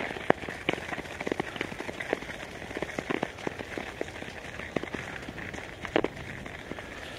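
Snow-covered canal ice crunching and crackling under someone moving across it: irregular sharp clicks over a steady hiss, with a louder crunch about six seconds in.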